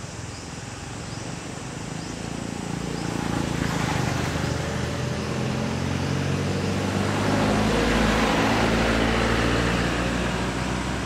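Engine of a passing motor vehicle, growing louder from about four seconds in, loudest around eight seconds, then easing off near the end.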